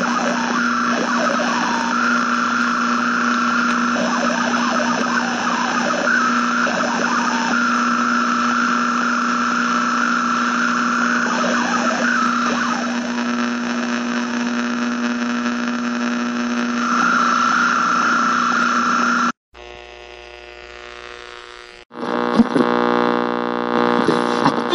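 Radio static: a steady hiss with a low hum and a whistling tone that comes and goes. It cuts off sharply about 19 seconds in. After a short quieter stretch, a second burst of buzzing, crackly radio noise starts about 22 seconds in.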